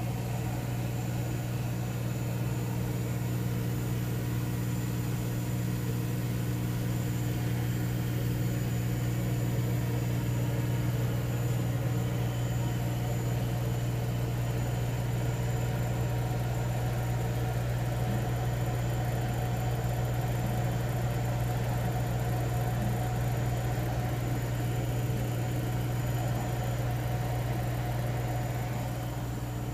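50 W CO2 laser engraver running its job with its cooling and exhaust equipment on: a steady low electrical hum with a few faint steady higher tones.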